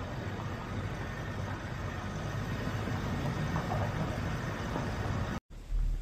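A vehicle driving on a gravel track: steady engine and tyre noise. It breaks off for an instant about five seconds in, and a quieter low hum follows.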